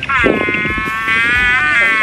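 A farm animal's long drawn-out call, one held cry lasting nearly two seconds.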